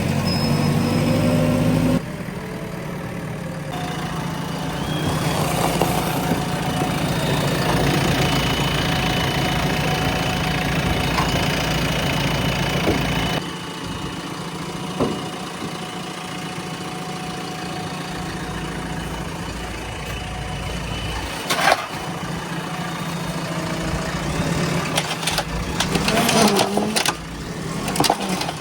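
JCB 3DX Plus backhoe loader's diesel engine running steadily at idle, its level changing abruptly about two seconds in and again about halfway through, with a few sharp knocks and some clatter near the end.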